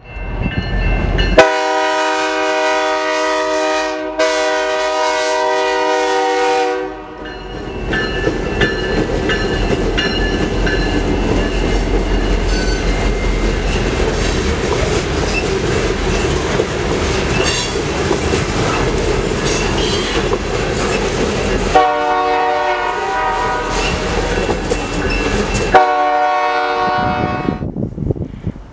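Diesel freight locomotive horn sounding one long chord of about five seconds. The steady rumble and clatter of hopper cars rolling past follows. Near the end come two more horn blasts, a long one and a short one.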